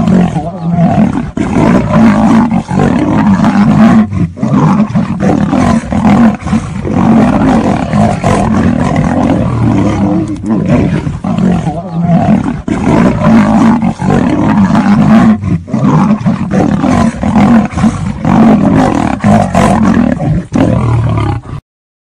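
A lion and a tiger roaring at each other over and over in a fight, loud and almost without a break, cutting off suddenly near the end.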